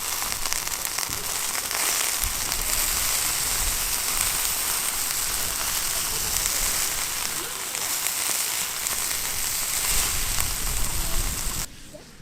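Food frying in a pan, a steady sizzling hiss with fine crackles, cut off abruptly near the end.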